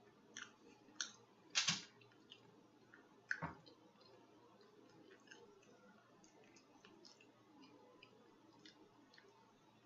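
Close-miked mouth sounds of someone eating: four short wet smacks and clicks in the first few seconds, the loudest near the second mark, then only faint small ticks.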